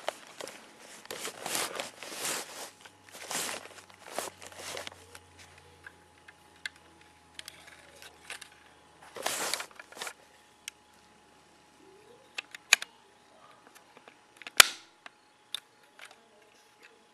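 Plastic LEGO parts of a slide-action LEGO catapult gun being handled and slid, a run of scraping strokes in the first few seconds and scattered light clicks. Then, well past halfway, one loud sharp snap as the catapult fires.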